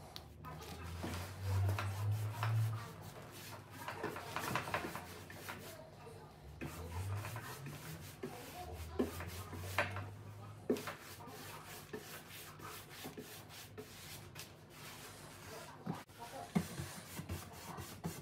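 Bristle wax brush scrubbing antiquing wax into wood veneer: irregular rubbing strokes with small taps of the brush on the wood and the tin. A low hum comes in twice under it, rising in pitch about seven seconds in.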